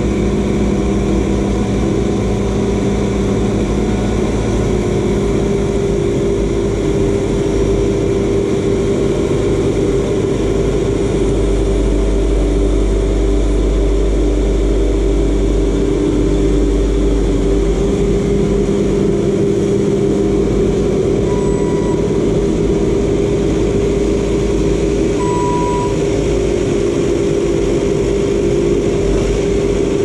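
Compact track loader's diesel engine running steadily as the machine drives and turns on its rubber tracks, with small changes in engine speed.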